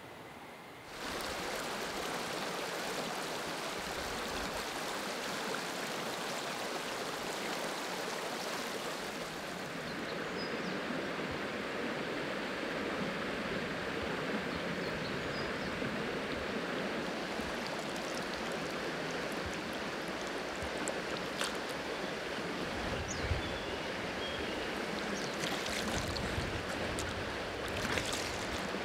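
River water flowing with a steady rush, starting about a second in. A few short knocks and low thumps come near the end.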